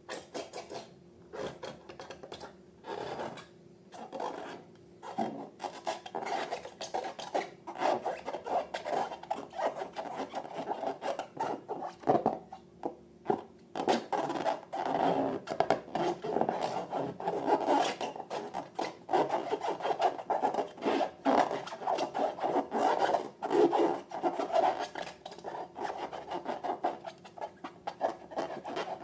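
Slime being mixed and worked, with quick irregular rubbing, scraping and crackling strokes.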